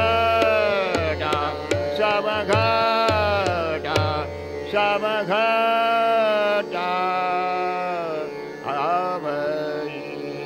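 A man singing a Hindustani devotional song (bhajan) in long, gliding held notes over a steady tanpura drone, with tabla accompaniment that stops about four seconds in; the voice trails off near the end, leaving the drone.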